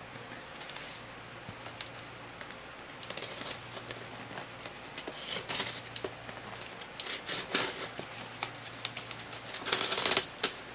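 A dull work knife cutting and scraping through packing tape on a cardboard shipping box. Repeated scratchy, rasping strokes start a few seconds in, come more often and grow louder, and are loudest near the end.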